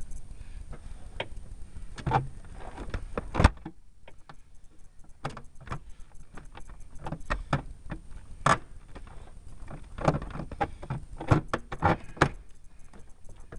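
Irregular clicks, knocks and rattles of hard plastic parts being handled and fitted under a car dashboard, with a few sharper knocks, the loudest about three and a half seconds in.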